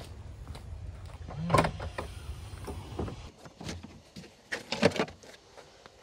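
Clunks and clicks of a BMW E90 M3's boot lid being opened and the boot floor panel being lifted to reach the battery: a louder clunk about one and a half seconds in, then several light clicks and knocks. A low rumble underlies the first half and stops about halfway through.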